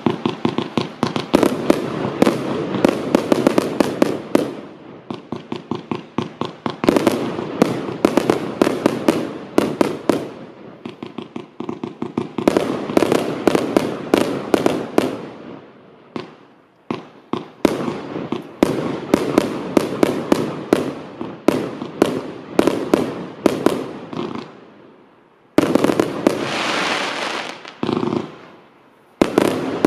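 Firework cakes firing rapid volleys of sharp bangs and cracks, many shots a second, in waves that fade and pick up again. Late on, a steady hissing rush starts suddenly, stops briefly and returns.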